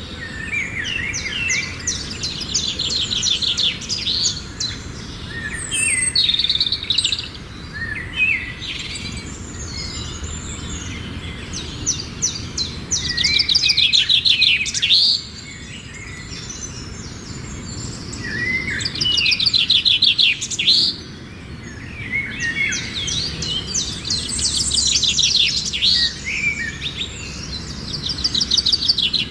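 Small pet parrots kept as love birds chattering and chirping, with fast rattling trills that come in bursts every few seconds.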